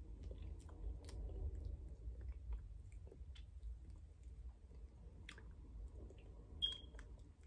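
Faint mouth sounds of eating soft, half-melted ice cream off a metal spoon, with small clicks as the spoon scoops from the cup, over a low steady hum. A brief high squeak comes near the end.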